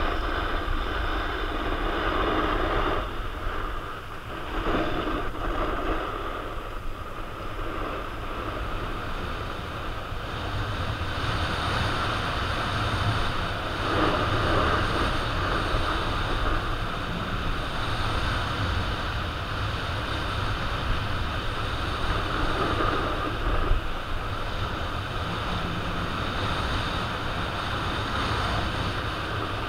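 Wind buffeting a helmet-mounted camera's microphone during a descent, with the steady hiss and scrape of edges sliding over groomed, packed snow.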